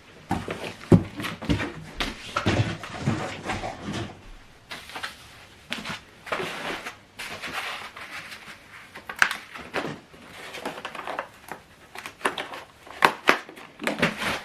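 Cardboard and paper packaging being handled while unboxing: irregular rustling with scattered sharp knocks and scrapes.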